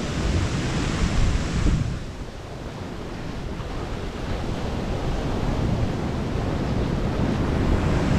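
Surf washing up the beach in a steady rush, easing about two seconds in and then building again, with wind buffeting the microphone.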